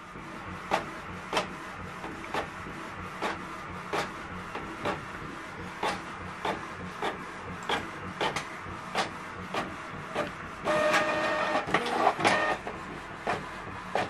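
Canon Pixma MG3650 inkjet printer printing a page: sharp clicks come about one and a half times a second over a steady mechanical hum. About eleven seconds in, a louder whir with a steady tone runs for about two seconds.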